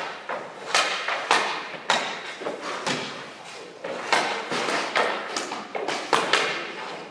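Hockey pucks and sticks striking in an echoing rink: sharp knocks of pucks hitting sticks, pads and boards, about two a second, each with a short echo.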